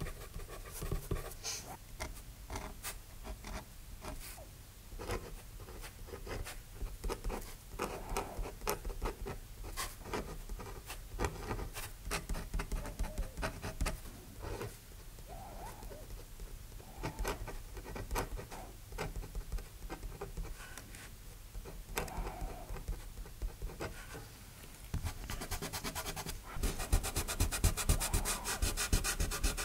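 A 4B pencil and then a steel Kabura dip-pen nib scratching over drawing paper in many short, quick strokes. Near the end, a kneaded eraser is rubbed rapidly back and forth across the paper, louder and more continuous.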